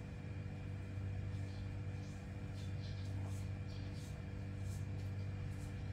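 A steady low mechanical hum with a few steady tones in it, with several faint, brief rustles from about two seconds in.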